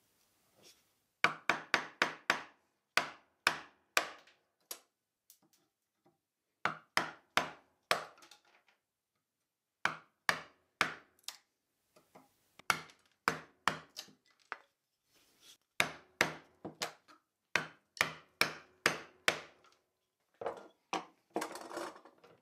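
Hammer blows on a wooden-handled chisel chopping the waste out between saw kerfs in a plywood strip. Sharp knocks come in quick bursts of three to six, with short pauses between bursts.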